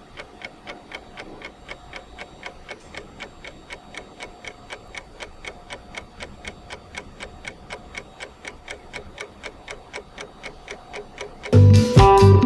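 Steady clock-like ticking, about four ticks a second, with faint music underneath. Near the end, loud guitar music cuts in suddenly.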